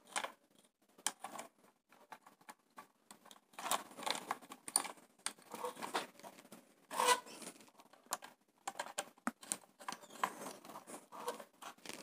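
Faint, scattered rustles and small clicks of hands twisting and routing PVC-insulated wires against plastic two-way switches on a wiring board.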